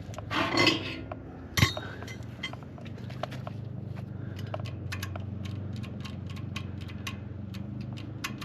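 Light metal clinks and taps, one sharp knock followed by many quick small ones, from tools and metal parts being handled while working on a sawmill engine that will not crank, over a steady low hum.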